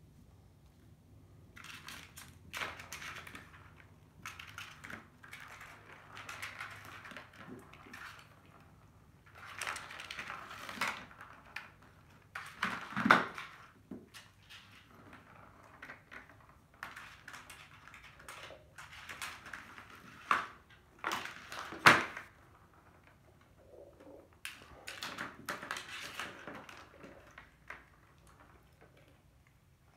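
Kittens pawing at plastic ball-track cat toys: on-and-off rattling and clattering of plastic, with two sharper knocks, about thirteen and twenty-two seconds in.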